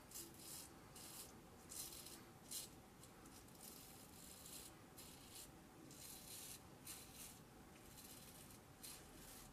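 Ming Shi 2000S adjustable double-edge safety razor scraping through lathered stubble in a series of short, quiet strokes.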